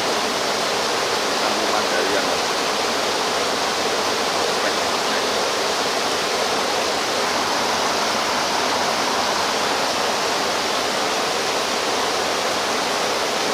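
Steady rush of flowing water, an even hiss with no breaks or changes.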